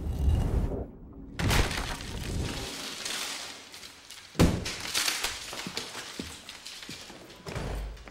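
Sledgehammer blows smashing into a plaster wall, with crumbling debris crackling and falling between the strikes. The loudest blow lands about four and a half seconds in.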